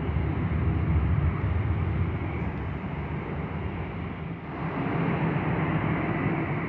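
Aircraft engines passing: a loud, steady rumble with a faint high whine over it. It dips briefly about four seconds in, then swells again.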